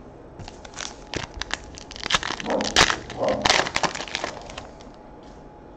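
Foil wrapper of a trading-card pack being torn open and crinkled: a run of crackles that starts about half a second in, is loudest around the middle, and dies away about a second before the end.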